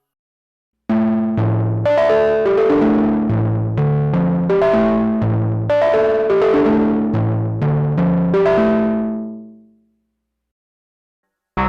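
Sequential Prophet-6 analog synthesizer playing an FM patch, with oscillator 2 modulating at audio rate through the Poly Mod section, dry with no effects. A sequenced melody of sharply struck notes, each decaying quickly, starts about a second in and dies away near the end.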